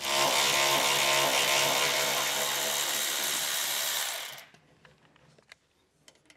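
Cordless electric ratchet with a 15 mm socket running steadily, spinning out the bolt of an exhaust hanger mount on a pickup's underside. It stops suddenly after about four and a half seconds, and a few faint clicks follow.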